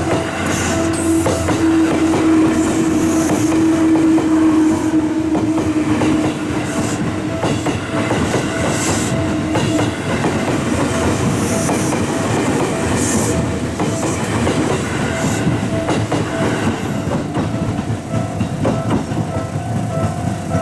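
A train running past over a railway level crossing, its wheels clicking over the rail joints, with a steady tone that sinks slightly and fades about halfway through. Under it the crossing's warning alarm keeps sounding in a steady repeating pattern.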